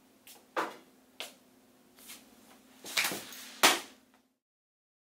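A few short, sharp knocks or clicks over a steady low hum, the loudest about three and a half seconds in; everything cuts off abruptly near the end.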